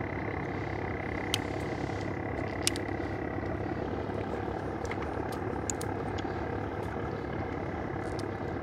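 A small boat engine idling steadily, with a thin steady whine above it and a few light clicks.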